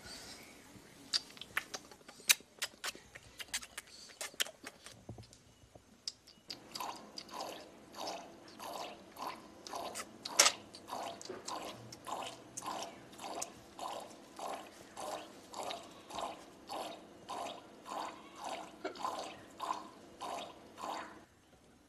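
A cow being hand-milked into a metal bucket: milk squirts in regular strokes, a little over one a second, after a few scattered sharp clicks at the start.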